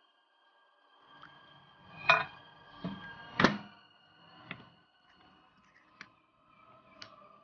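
Sharp knocks and thunks of a bowl being handled at a microwave oven, the two loudest about two and three and a half seconds in, then a few light clinks of a metal spoon stirring in a ceramic bowl.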